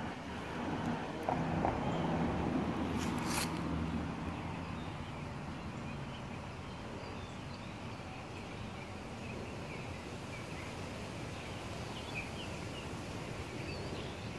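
Outdoor background: a low hum fades away over the first few seconds, with a brief sharp noise about three seconds in, and then faint bird chirps.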